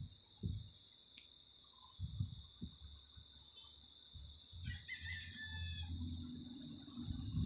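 Faint, scattered low bumps from fingers handling and twisting the thin earphone wires, over a steady high-pitched whine. A short, distant bird call sounds about five seconds in.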